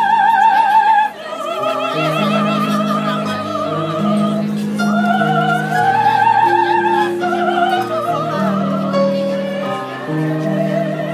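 A soprano singing an operatic aria in a high register with wide vibrato, over sustained accompaniment chords. The singing dips briefly about a second in.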